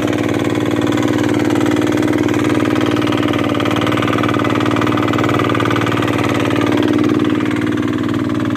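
A small fishing boat's engine running with a steady drone.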